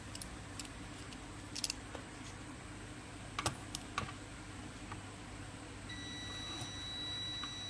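A few light clicks and taps, then a steady high-pitched electronic beep that starts about six seconds in and holds.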